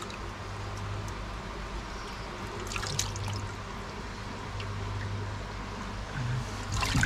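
Water trickling steadily in a koi pond, over a low steady hum. A couple of light knocks come about three seconds in and again near the end.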